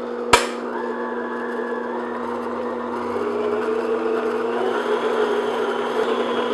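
Electric stand mixer running steadily, its beater churning thick peanut butter frosting in a glass bowl, with a steady motor hum. A single sharp click sounds about a third of a second in.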